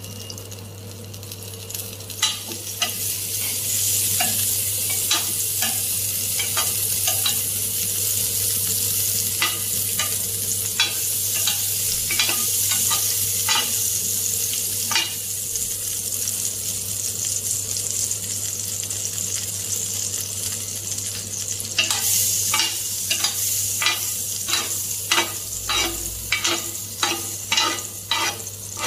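Butter sizzling as it melts and foams on a nonstick ridged grill pan, with a metal spoon scraping across the pan's ridges as it spreads the butter. The sizzle builds over the first few seconds, and the spoon strokes come quicker and closer together near the end.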